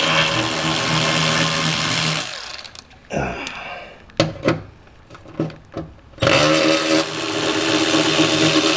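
Milwaukee 3/8-inch cordless ratchet running, spinning out undertray bolts: two runs of a couple of seconds each, with clicks and knocks of the tool being handled between them.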